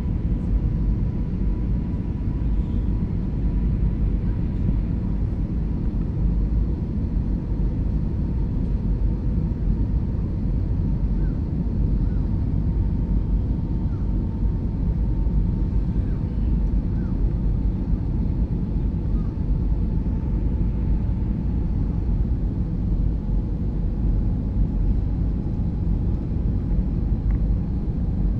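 Airbus A320 cabin noise during descent: a steady low rumble of engines and airflow with a faint steady whine above it.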